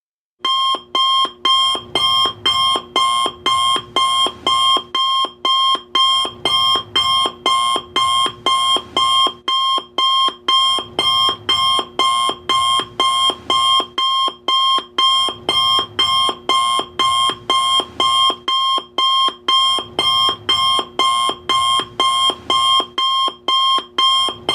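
Alarm-clock alarm going off, a loud rapid pulsing ring repeating a little over twice a second: the timer has run out. It starts about half a second in.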